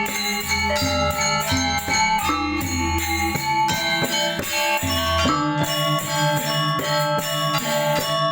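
A Balinese gamelan ensemble playing: bronze metallophones struck in a quick, even rhythm, ringing over repeated deep gong tones.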